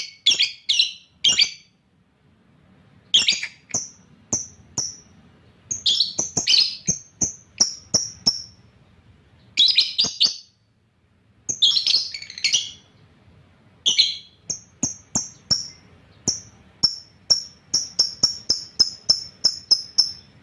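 Pet lovebird calling a lot: short, sharp, shrill chirps in irregular clusters, settling near the end into a fast run of evenly spaced chirps, about two or three a second.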